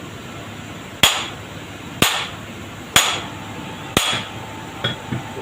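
Four hard hammer blows on metal, about one a second, each ringing briefly, then two light taps near the end: a stuck part is being knocked loose while an alternator is taken apart.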